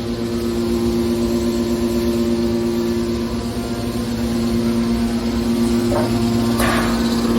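Hydraulic scrap-metal baler running, its power unit giving a loud, steady hum on two fixed tones. A faint tick comes about six seconds in and a brief clatter about half a second later.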